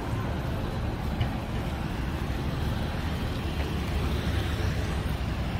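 Steady street traffic noise, a continuous low rumble with no single vehicle standing out.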